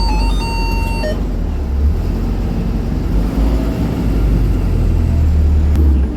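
An electronic chime tune on a small city bus finishes about a second in, then the minibus's engine runs with a steady low rumble as it drives.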